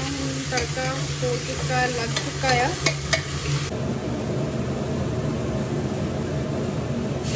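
Vegetables sizzling in ghee in a pressure cooker while a metal spoon stirs them, scraping and clicking on the pot. About four seconds in the stirring stops and a steady low hum with a soft hiss is left.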